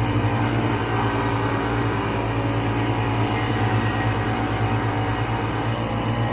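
Vintage Ski-Doo snowmobile's two-stroke engine running at a steady speed, cruising over a snow-covered trail.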